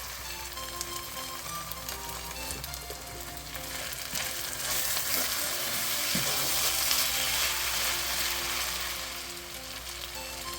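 Chopped kkakdugi (radish kimchi) stir-frying in a pan for fried rice: a steady sizzle that grows louder in the middle, with the odd scrape of a spatula.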